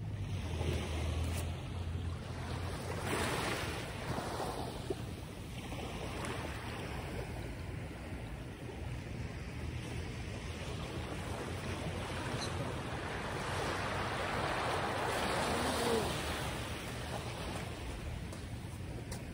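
Steady rushing noise of wind, swelling and easing a few times, with a low rumble from wind buffeting the microphone.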